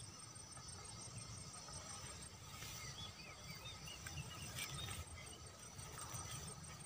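Faint outdoor ambience: small high chirps repeating throughout over a thin steady high-pitched whine and a low rumble.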